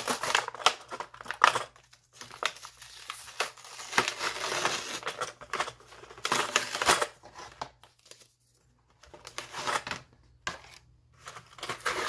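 Plastic blister pack and its cardboard insert being pried open and peeled apart: irregular crinkling and tearing of plastic and card, with a couple of short quiet pauses in the second half.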